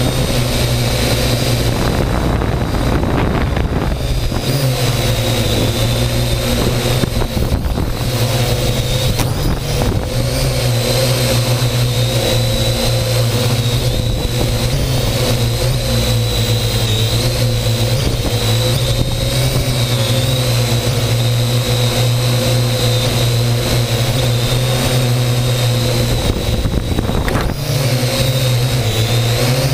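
Electric motors and propellers of a multirotor drone in flight, heard up close from the GoPro hanging beneath it: a steady buzzing whine whose pitch wavers slightly as the drone manoeuvres.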